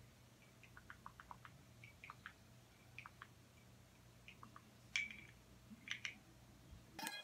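Faint scattered clicks and taps of small objects being handled by hand, with two louder clicks about five and six seconds in, over a low steady room hum.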